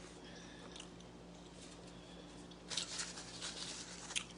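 Close-up chewing and mouth sounds of someone eating, in a short cluster from about two and a half to four seconds in, over a faint steady hum.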